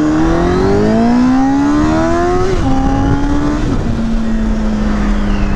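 Triumph Daytona 600 sport bike's inline-four engine accelerating, its pitch rising for about two and a half seconds. It then drops at two upshifts and holds steady at cruising speed.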